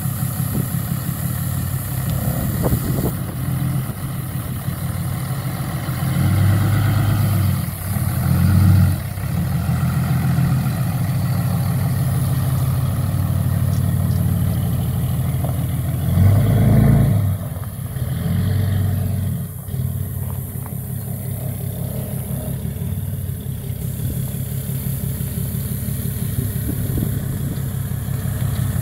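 The 2008 Dodge 3500's 6.7-litre Cummins straight-six turbo-diesel runs steadily with an even, rhythmic beat. It swells louder briefly about six, eight and sixteen seconds in.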